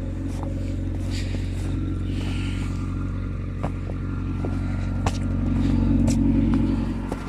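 Vehicle engine idling steadily, with scattered light clicks and knocks; it swells a little about six seconds in, then eases off near the end.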